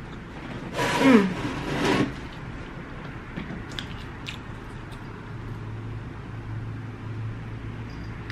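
A short vocal sound from the eater about a second in, falling in pitch. It is followed by a few faint clicks of food being handled, and a low steady hum comes in around five seconds.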